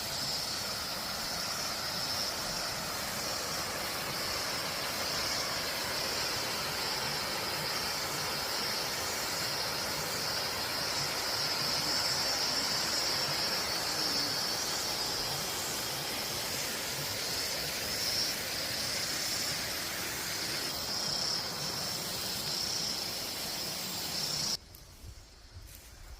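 Steady chorus of insects keeping up a continuous high trill over a background of outdoor noise. It drops away abruptly a couple of seconds before the end.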